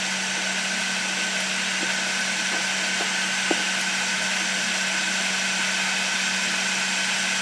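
Milling machine spindle running at a steady speed: an even motor hum with a higher whine over a broad hiss, coming on abruptly at the start.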